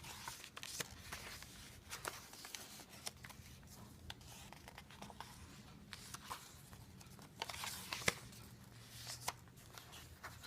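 Faint rustling and crinkling of paper with scattered light clicks and taps, from the pages, tags and inserts of a handmade paper journal being handled and turned; the sharpest tap comes about eight seconds in.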